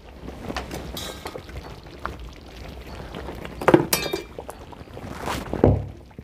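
Metal karahi full of kadhi handled with a cloth and lifted off the stove: scattered clinks and scrapes of the pan and ladle, a few sharp metal knocks around the middle, and a heavier thud near the end as the pan is set down.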